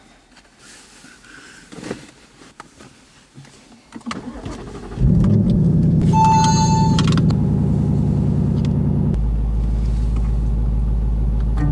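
Ford Mustang's engine starting about five seconds in with a sudden flare of revs that settles into a steady idle, with a short electronic dashboard chime just after it starts. Before that, soft rustling and a few small clicks of clothing and a seatbelt in the cabin.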